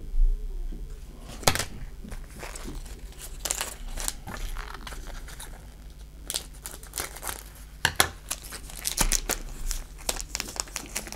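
Foil trading-card booster pack crinkling and tearing as it is handled and cut open, with sharp crackles of the wrapper coming thick and fast in the second half.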